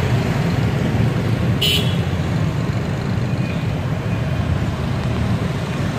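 Steady rumble of street traffic, with oil frying in a wok underneath it. A short, high horn toot sounds about two seconds in.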